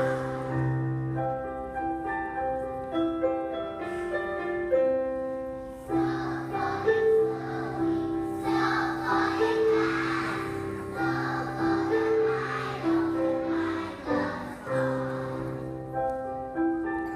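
A large group of young children singing together in unison over instrumental accompaniment with steady, held notes. The children's voices are loudest in the middle stretch.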